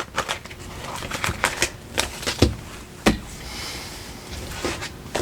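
Tarot cards being handled: a string of irregular light taps and card slaps, with a louder slap about three seconds in followed by a soft sliding rustle.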